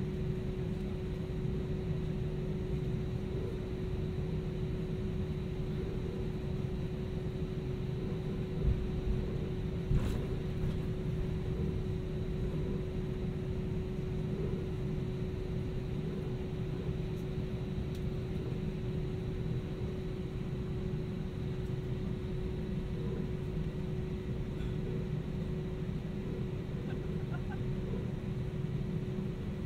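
Steady cabin noise inside an Airbus A320-200 powered by IAE V2500 engines: a low rumble under a constant mid-pitched hum. Two brief thumps come around nine and ten seconds in.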